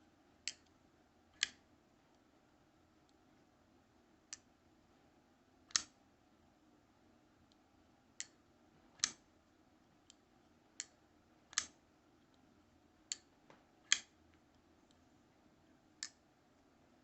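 Copper-scaled Kershaw folding knife being flipped open and shut over and over, about a dozen sharp metallic clicks spaced unevenly, a second or more apart, as the blade snaps out and locks or is closed.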